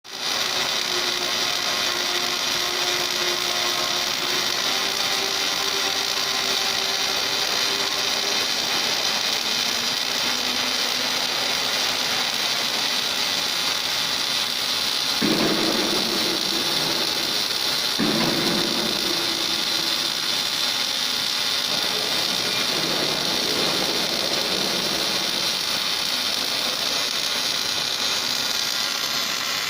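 Automatic welding machine welding a hydraulic cylinder rod end: a steady, continuous hiss from the welding process, with faint machine tones underneath. About halfway through, a lower mechanical sound cuts in sharply twice, a few seconds apart.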